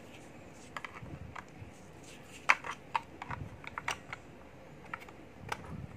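Scattered plastic clicks and taps from handling a handheld satellite meter while its battery cover is fitted back over the battery, with one sharper click about two and a half seconds in.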